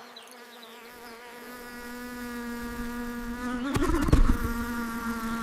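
A housefly buzzing with a steady drone that grows louder as it comes close. A few dull thumps come about four seconds in.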